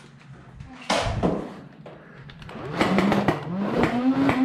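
A sudden loud knock about a second in, then the flywheel motors of a battery-powered Nerf blaster spinning up into a steady whine that slowly rises in pitch, with sharp clicks of darts firing over it.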